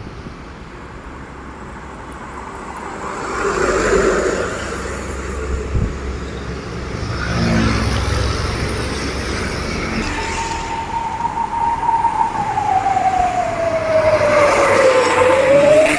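Heavy trucks passing on a road, engines and tyres rising and falling as they go by. From about ten seconds in, a single wailing siren-like tone holds high, slides down over a few seconds, and starts to climb again near the end.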